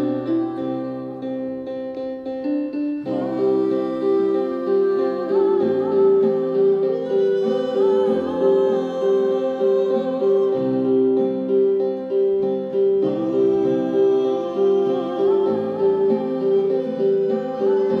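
A live acoustic band playing: an acoustic guitar and keyboard with a wordless hummed female vocal. The music fills out and gets louder about three seconds in, with a steady pulse of repeated notes.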